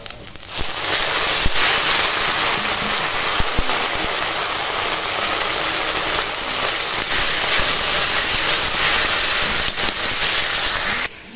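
Tadka frying in hot mustard oil in a kadhai: a loud, steady sizzle that starts about half a second in as chopped greens drop into the pan, and cuts off suddenly near the end.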